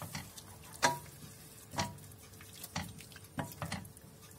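A wooden spoon stirring cream in a stainless steel pot, knocking against the pot about once a second, some knocks leaving a short metallic ring. Under it a faint sizzle of the cream heating over butter-fried parsley.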